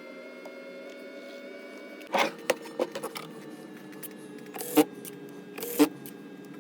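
A steady hum with a series of sharp clicks and taps starting about two seconds in, a few of them louder knocks.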